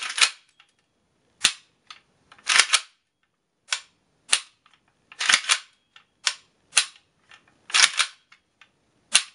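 Arsenal SLR-106UR AK pistol being function-tested by hand: its action is cycled and dry-fired, giving a series of sharp metallic clicks and a few short clattering bursts. This is a check of the fire control group, freshly fitted with a Tapco retaining plate in place of the failed shepherd's hook.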